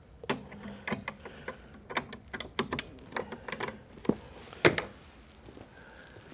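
A rapid, irregular run of sharp clicks and knocks, several a second, with one louder knock near the end.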